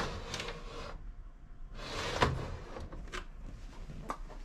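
Door of a stainless-steel galley gas oven being opened and shut by hand: a click as it opens, a short rustle, then a knock about two seconds in as it closes, followed by two lighter clicks.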